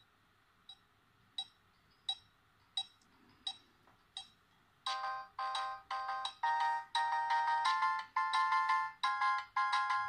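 Siemens SF65 clamshell mobile phone playing a polyphonic ringtone through its small loudspeaker. It opens with a row of short, evenly spaced ticks, about one every 0.7 seconds. About five seconds in, a louder tune of short electronic chord notes takes over.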